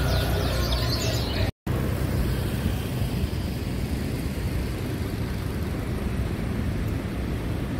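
Caged birds chirping over a motorcycle engine, cut off by a brief dropout about a second and a half in, then steady road traffic noise.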